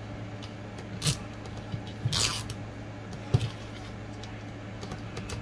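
Toy packaging handled at a table: a few light clicks and taps, and a brief rustle about two seconds in, over a steady low electrical hum.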